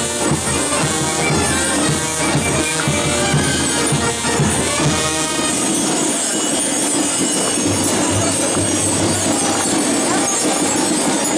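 Carnival brass band music with drums, mixed with the jingling of the Gilles' belt bells and crowd chatter. The tune drops back about six seconds in, leaving mostly bells and crowd noise.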